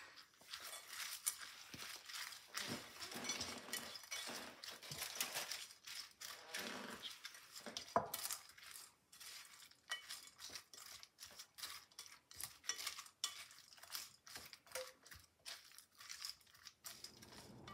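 A spatula stirring a thick mix of cubed turkey, bacon, onion and mayonnaise in a glass mixing bowl: faint repeated scrapes and light knocks against the bowl, with one sharper clink about eight seconds in.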